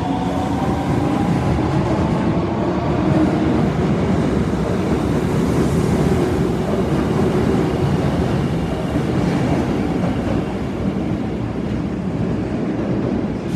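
Osaka Metro Tanimachi Line 22 series subway train running. A whine of several tones rises in pitch as it accelerates and fades out about two seconds in, leaving steady rolling noise.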